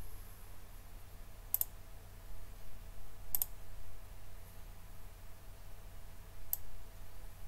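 Three separate clicks of a computer mouse button over a steady low hum.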